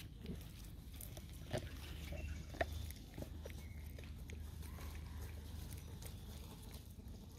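A few short, isolated sounds from a mother macaque and her infant, the clearest about one and a half and two and a half seconds in, over a steady low hum.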